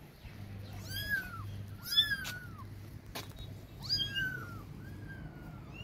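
Young kittens mewing: several high-pitched calls, each rising and then falling, the loudest about two seconds in. A single sharp click comes near the middle, over a steady low hum.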